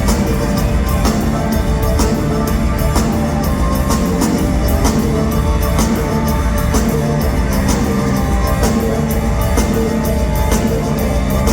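Live rock band playing loudly, with a steady drum beat under sustained instruments.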